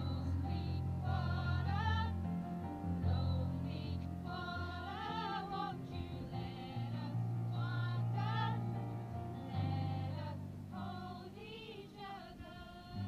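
A small group of carol singers, men and women, singing a Christmas carol to electronic keyboard accompaniment, with steady held bass notes under the voices.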